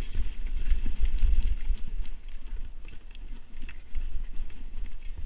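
Mountain bike riding fast down a dirt trail strewn with dry leaves: tyre noise with scattered clicks and knocks of the bike rattling over bumps, under a gusty low rumble of wind buffeting the microphone.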